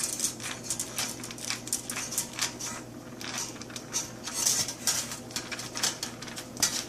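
Stainless steel worm-drive hose clamps being handled and joined end to end, the metal bands clinking and rattling in many irregular light clicks.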